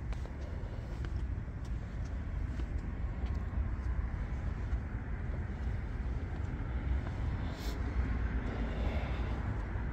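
Steady low outdoor rumble and hiss, with a few faint clicks.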